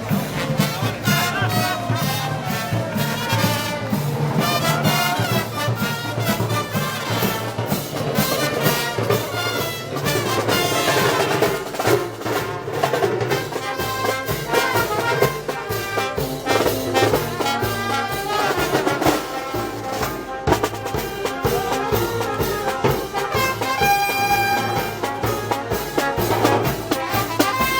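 A festival wind band playing Moros y Cristianos march music, with brass over a steady drum beat.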